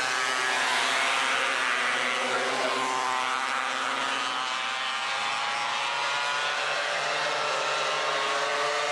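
Several 270cc micro sprint car engines racing at high revs, their overlapping notes rising and falling as the pack runs through the turns.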